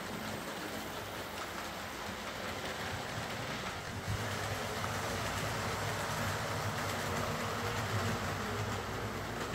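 Hornby OO gauge Class A4 Mallard model locomotive running on the layout, its motor humming and its wheels and trailing coaches rumbling and clicking over the rail joints, freshly serviced with cleaned pickups and oiled wheels. It gets louder about four seconds in.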